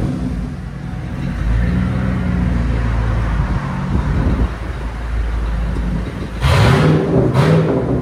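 Straight-piped 1996 Ford Bronco 5.0L V8 idling with a steady low rumble, then revved twice in quick succession near the end, the exhaust getting much louder on each rev.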